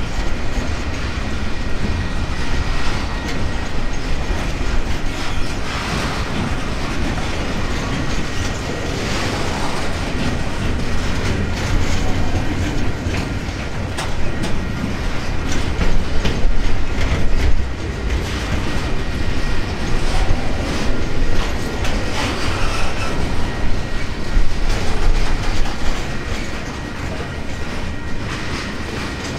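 Freight train's container and tank wagons rolling past close by, with a steady rumble and the clickety-clack of wheels over rail joints. A thin high whine sounds above the rumble.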